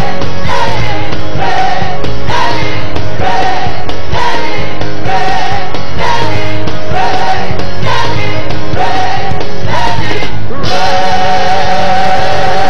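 Live gospel worship music: a band and singers repeat short sung phrases about once a second over a steady beat. About ten seconds in, the phrases give way to long held notes with vibrato.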